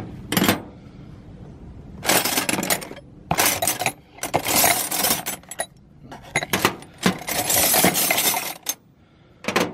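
Steel wrenches clinking and clattering against one another as they are picked up, shuffled and laid down, in a string of separate handfuls spread over several seconds.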